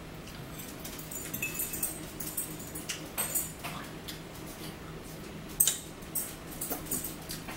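Forks and spoons clinking and scraping against plates and a plastic bowl, with mouth sounds of people eating: a scatter of short sharp clicks, the loudest a little past halfway.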